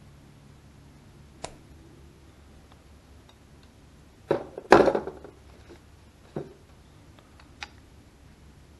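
Hand tool and small metal parts being handled, making a few sharp clicks and knocks, with a louder clatter of knocks about four and a half seconds in.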